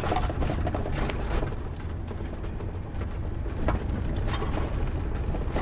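Dodge Coach House Class B camper van driving on a dirt road, heard from inside the cab: a steady low rumble of engine and tyres, with scattered knocks and rattles from the bumpy surface.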